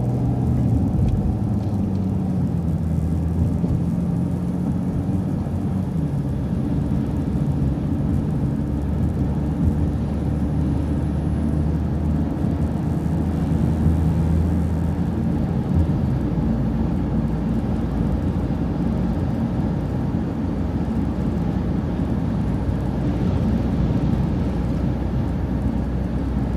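City transit bus engine pulling away after a turn, its tone climbing and stepping down a few times over the first fifteen seconds or so. After that it settles into a steady engine drone with road noise.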